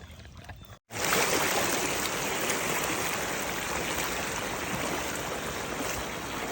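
Creek water running steadily, a constant rushing hiss. It breaks off briefly about a second in, then comes back louder.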